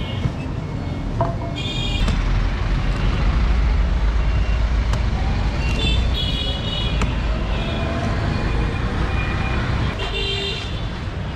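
Street traffic: a continuous engine rumble of passing vehicles, loudest from about two to six seconds in, with short high-pitched horn toots three times.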